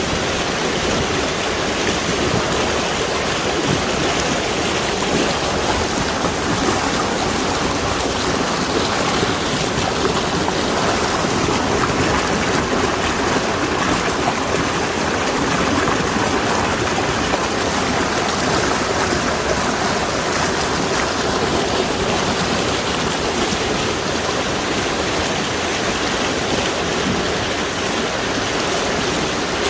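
Mountain valley stream rushing steadily, a constant full water noise.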